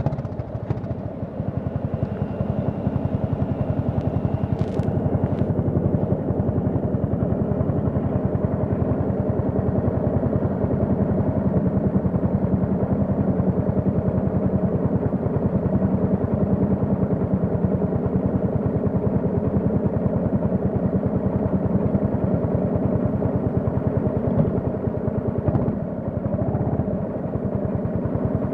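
Yamaha FZ25's single-cylinder engine running through an aftermarket MTG MotoTunings exhaust while the motorcycle is ridden at a fairly steady pace. The engine note eases off briefly near the end.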